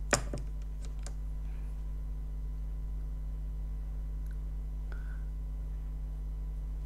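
One sharp click just after the start and a couple of fainter clicks about a second in, from makeup products and tools being handled, over a steady low electrical hum.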